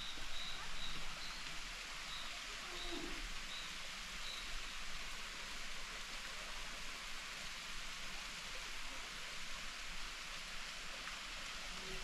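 Steady rush of a distant waterfall, an even hiss with no break. A bird chirps a few short, high notes during the first few seconds.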